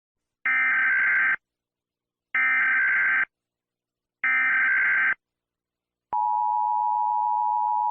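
Emergency Alert System tones: three short buzzing data bursts of the SAME header, each just under a second long and evenly spaced, then the steady two-tone attention signal starting about six seconds in.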